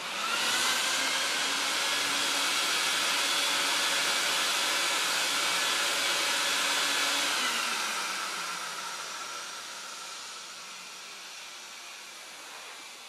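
Vacuum motor drawing air and water out of a wet pillow, a steady rushing hiss with a faint whine. The whine rises as the motor spins up at the start, and from about seven seconds in it falls and the sound fades as the motor winds down.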